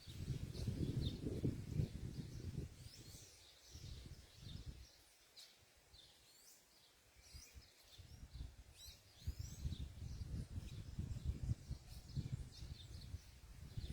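Small birds chirping in many short, quick calls, over a low rumble that fades away in the middle and comes back after about eight seconds.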